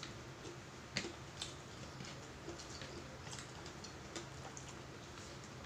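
Quiet eating sounds: a few faint, scattered clicks and ticks, the sharpest about a second in, over a faint steady low hum.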